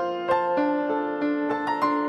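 Background music: a soft keyboard melody, sustained notes struck about three times a second.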